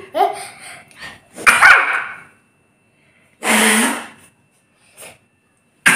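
Three loud sneezes, each starting suddenly, about two seconds apart, with a fainter one between the second and third.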